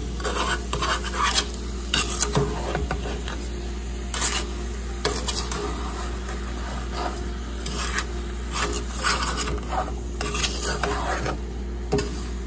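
A wooden spatula stirring sugared mixed berries in a metal pot, with irregular scraping and rubbing strokes against the pot's sides and bottom. A steady low hum runs underneath.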